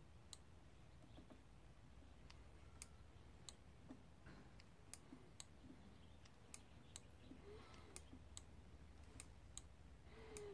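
Faint sharp clicks, irregular at about one or two a second, from a GY6 scooter's adjustable hydraulic front brake lever being pumped during a brake bleed while the fluid level in the open reservoir is watched. Near-silent room tone in between.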